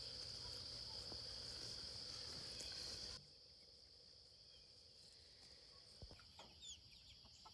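Steady, high-pitched insect chorus in a rural pasture before dawn, dropping abruptly to a fainter level about three seconds in. A few faint bird chirps come near the end.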